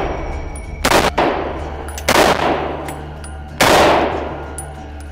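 M1 Garand rifle in .30-06 fired semi-automatically, three shots about a second and a half apart, each crack followed by a long echo off the walls of an indoor range.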